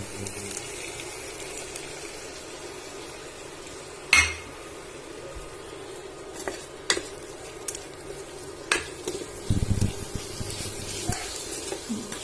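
Prawns frying in a pan with onion-spice masala, a steady sizzle under a spatula stirring and scraping, with sharp clinks of the spatula against the pan, the loudest about four seconds in.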